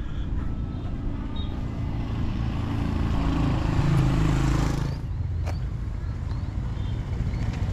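A motor vehicle passing close by on the road, over a steady low rumble: its engine and tyre noise build to their loudest about four seconds in, then drop away suddenly.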